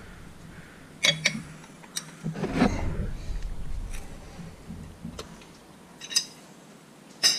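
Scattered metallic clicks and knocks of hand tools on the engine as the timing belt tensioner nut is tightened, with a short run of quick ticks about six seconds in and a louder clatter near the end.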